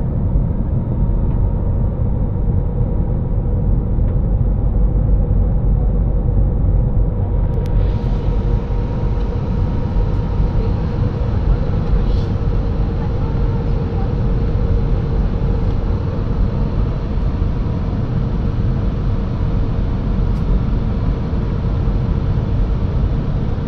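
Airbus A320-214 cabin noise from a window seat over the wing on approach: a steady low rumble of its CFM56 turbofan engines and rushing airflow, with a faint steady hum.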